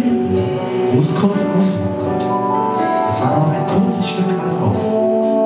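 Small jazz ensemble playing live, with trombone, vibraphone, double bass and drums: held pitched notes over a busy rhythm section.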